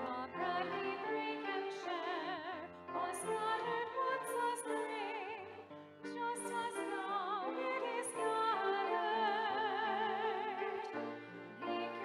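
Communion hymn sung by a singer with a wide vibrato over instrumental accompaniment holding low notes.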